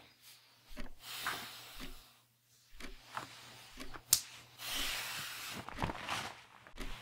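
Cloth rustling close by, with scattered soft knocks and clicks from handling things, one sharp click about four seconds in, over a faint steady low hum.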